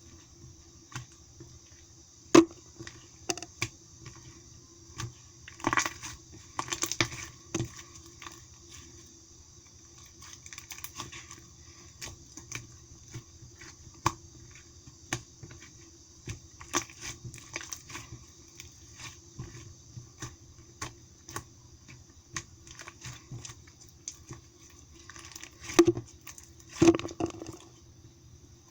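Thick soft-clay slime being pressed, stretched and poked by hand, giving irregular small clicks and crackling pops of trapped air, with a few louder pops about two seconds in, around six seconds and near the end. A faint steady hum sits underneath.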